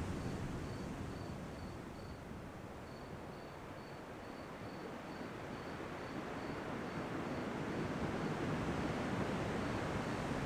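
Ocean surf washing, easing off and then building again as the next wave comes in, with a cricket chirping in a steady run of high chirps about twice a second.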